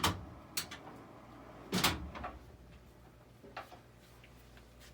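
A few sharp, separate knocks and clunks of objects being handled and set down, the loudest about two seconds in, over a low steady hum.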